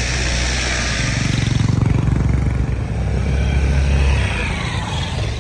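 Motorcycle engine running while the bike is ridden. It gets louder about a second and a half in and eases off after about four seconds, over a steady rush of wind and road noise.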